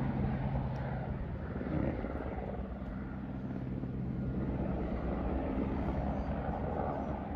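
A helicopter flying at a distance, running steadily: a low hum with a fast, fine rotor flutter.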